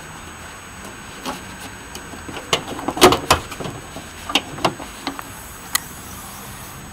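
A run of clicks and clunks, loudest about three seconds in: an Audi 90's bonnet being unlatched and lifted open.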